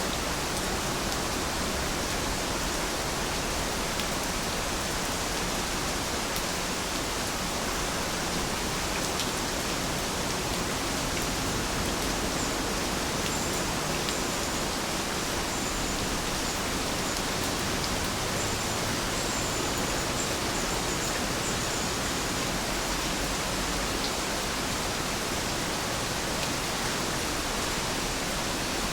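Steady rain falling, a dense, even hiss that holds constant throughout, with a few faint, short high chirps midway.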